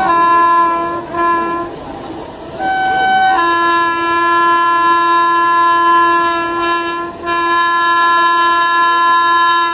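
Indian Railways WAP-7 electric locomotive's multi-tone horn honking repeatedly as the train passes at speed: two short blasts, a pause of about a second, then a long blast of about four seconds that opens on a single lower note, a brief break, and another long blast. The running noise of the train goes on underneath.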